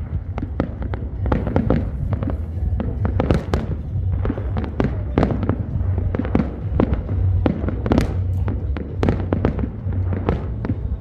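New Year's fireworks going off in quick succession: many sharp bangs and crackles, several a second, over a continuous low rumble.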